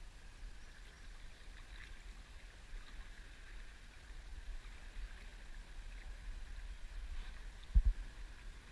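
Quiet on-the-water ambience from a small boat: a steady low rumble with faint water lapping and a few light ticks, then a single dull knock near the end.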